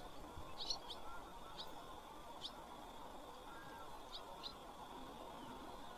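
Small birds chirping faintly outdoors: short high chirps, singly or in quick little clusters, about six times, over a thin steady high whine.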